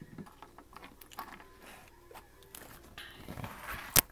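A disc-bound paper planner being handled and opened on a table: scattered light taps and clicks, a rustle of pages about three seconds in, and one sharp loud click near the end.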